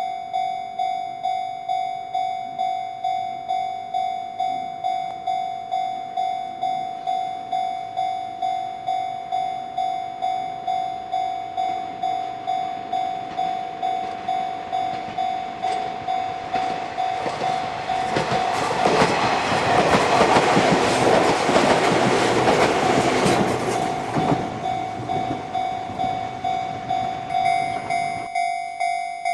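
Japanese level-crossing warning bell ringing throughout in a steady, repeating ding. About halfway through, a train approaches and runs through the crossing: it is loudest for several seconds, then fades while the bell keeps ringing.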